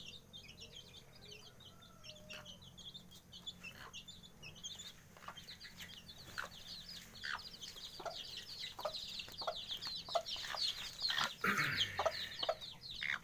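A brood of 18-day-old village chicks peeping in a steady stream of quick, high-pitched cheeps, with a mother hen clucking in short lower notes from partway through. Both grow louder toward the end.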